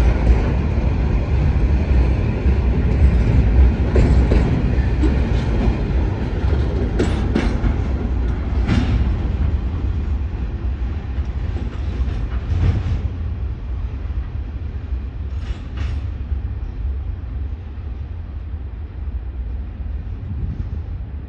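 Freight train wagons rolling past, a steady rumble of steel wheels on rail with a few sharp clacks, slowly growing quieter.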